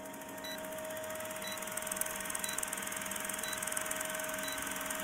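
Film-countdown sound effect: an old film projector running with a rapid, steady clatter and a constant hum, and a short beep once a second as the numbers count down.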